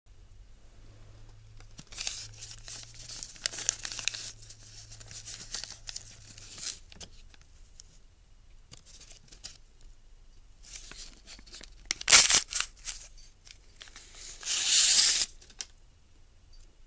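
A paper chopstick sleeve crinkling and being torn open: scattered rustling for several seconds, then a few sharp rips and one longer, loud tear near the end.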